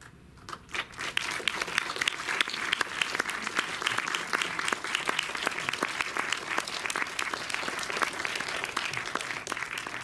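Audience applauding, starting with a few scattered claps about half a second in and quickly filling out into steady, dense applause.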